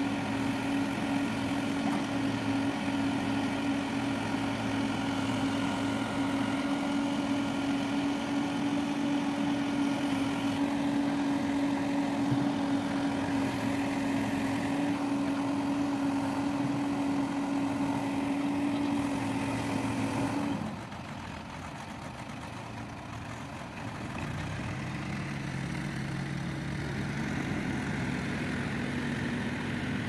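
Diesel engine of a Caterpillar backhoe loader running at a steady speed, holding one steady pitch. About two-thirds in, it cuts off abruptly. After a short quieter stretch, a lower, quieter engine note comes in as a loaded farm tractor drives away.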